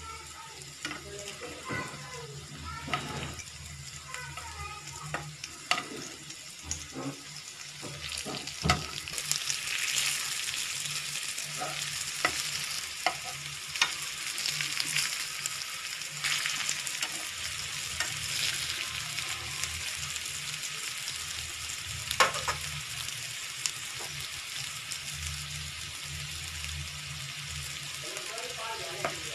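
Mung dal and colocasia-leaf patties (alu vadi) shallow-frying in oil in a nonstick pan: a steady sizzle that grows louder about nine seconds in. A few sharp taps of a metal spatula against the pan cut through it.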